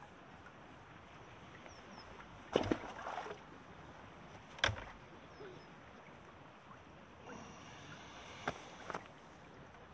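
Handling of pole-fishing tackle at the seatbox: a short cluster of knocks and clatter about two and a half seconds in, a single sharp click near the middle, and two more clicks near the end.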